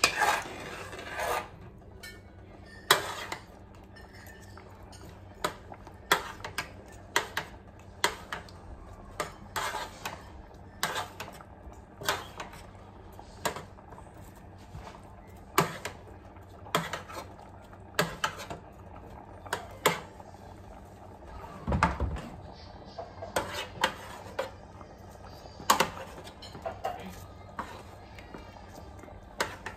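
Metal cooking utensil knocking and clinking against a metal roasting pan and pot while pieces of roast chicken are moved about, in sharp separate clinks roughly once a second, with one duller thump a little past two-thirds through.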